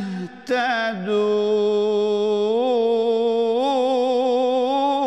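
A man reciting the Quran in Arabic in the melodic tilawah style: a few short sung syllables, then one long held note with small melodic turns, drawing out the final word of a verse.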